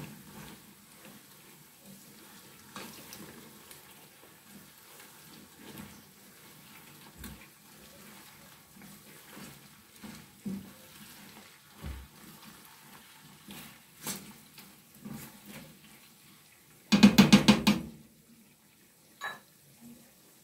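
Plastic spatula stirring meat, crab and fish through hot palm oil and onions in a frying pan, with a faint sizzle and scattered scrapes and knocks against the pan. Near the end a loud, quick rattle of knocks lasts about a second.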